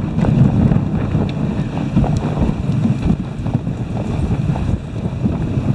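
Dog sled moving along a snow trail: the runners slide and scrape over the snow with many small clatters, under a steady rumble of wind on the microphone.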